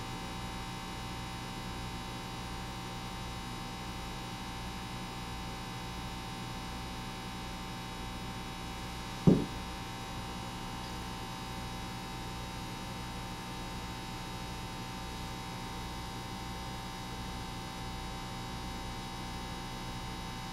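Steady electrical mains hum, with a single short knock a little past the middle.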